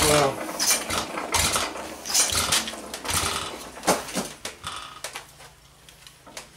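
1913 Stickney 1 3/4 HP hit-and-miss engine clattering, with sharp mechanical clicks and knocks roughly once a second that die away about four to five seconds in.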